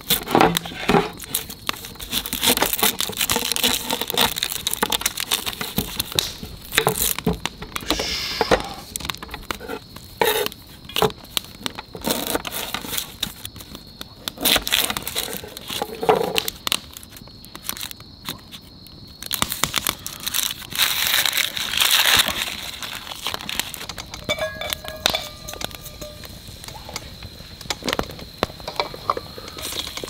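Knife peeling and slicing a raw onion on a wooden cutting board: papery skin crinkling and tearing, and crisp cuts through the onion, in irregular clusters of short strokes.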